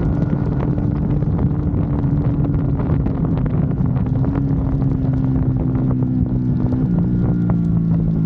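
Motorcycle engine running at a steady cruising speed under wind buffeting on the microphone, its note shifting about seven seconds in.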